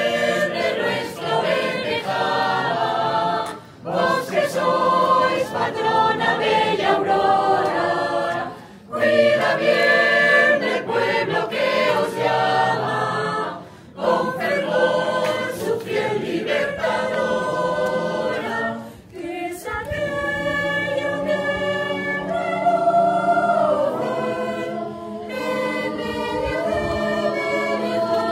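Choir singing a Spanish religious hymn without accompaniment, in phrases broken by brief pauses about every five seconds.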